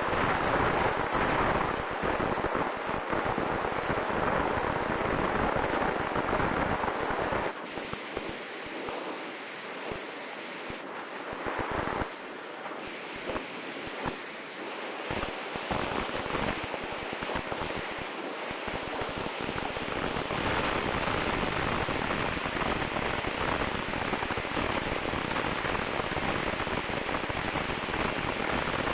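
Wind rushing over the onboard camera's microphone of a Mini Talon FPV wing in flight, buffeting in gusts, with a faint steady whine underneath. It goes quieter and less rumbly for a stretch in the middle, then steadies and grows louder again.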